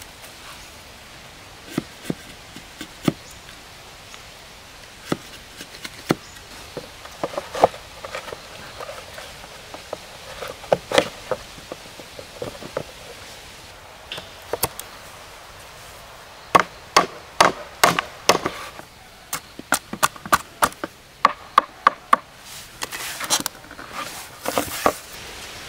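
A blade chopping wood: an irregular series of sharp strikes, at first single and a second or more apart, then in quick runs of several a second in the second half.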